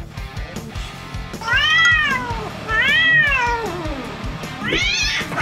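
A cat meowing: two long calls that rise and fall in pitch, then a shorter one near the end, over background music with a steady beat.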